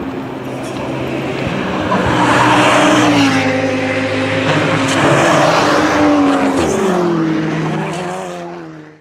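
Formula 2 race cars' naturally aspirated V8 engines running at high revs, the pitch falling in the last couple of seconds as the sound fades out.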